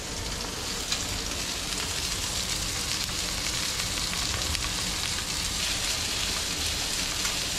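Steady frying sizzle from hot pans: butter melting into a skillet of roasted diced delicata squash, with tautog fillets searing alongside. A couple of light clicks sound over the hiss.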